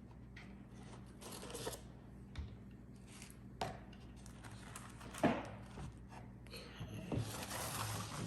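A cardboard box and its packaging being opened and handled by hand. Scattered taps and clicks run through it, with a sharp knock about five seconds in and a longer rustle of wrapping near the end.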